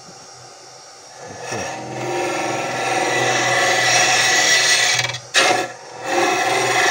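Wood lathe running while a hook cutter on a hollowing tool cuts into the end grain of a spinning soft-wood blank. The scraping cut starts about a second and a half in and builds up loud. It breaks off briefly with a sharp knock about five seconds in, then resumes near the end.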